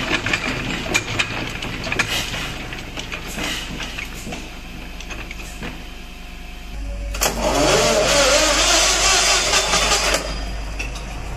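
Vintage Dutch stationary engine running with a clatter of sharp knocks. After that it goes quieter, and another engine is started: a sharp click, then a loud rushing start with a pitch rising as it spins up for about three seconds, which cuts off into a steady low running hum.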